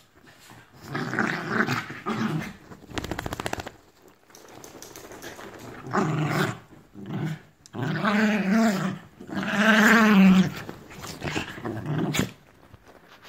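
Dogs wrestling and growling in repeated bursts; the longest and loudest growls come about eight and ten seconds in.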